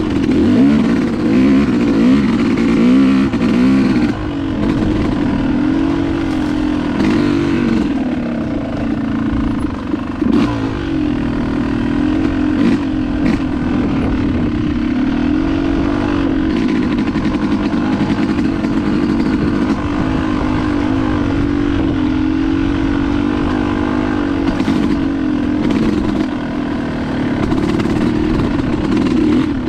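Dirt bike engine running as it is ridden along a dirt singletrack, its pitch rising and falling with the throttle. A few sharp knocks and clatter from the bike are mixed in.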